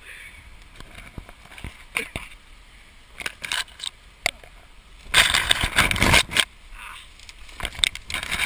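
Dry conifer branches and twigs snapping and rustling as people force their way through dense forest undergrowth, with scattered sharp snaps and a loud stretch of crashing brush about five seconds in.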